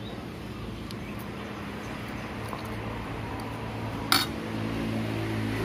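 Metal spoon and fork clinking and scraping on a plate while eating, with one sharp clink about four seconds in. A low engine hum grows louder in the second half.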